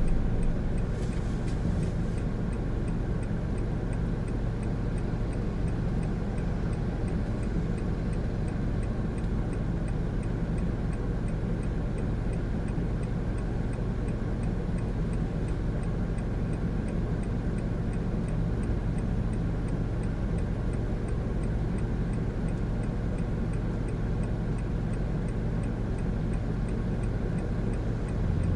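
Steady in-cabin drone of a Honda N-BOX Custom's 660cc turbo three-cylinder engine and road noise while driving, with a faint, even ticking throughout.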